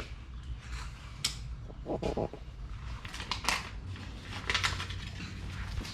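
Paper and sticker backing being handled and scraped, a series of short rustles and scrapes with a brief pitched sound about two seconds in.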